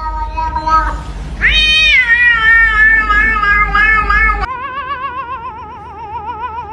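Domestic cat making long, drawn-out meowing calls: a short meow, then a long yowl that rises and slowly falls, then a long call that wavers quickly up and down in pitch.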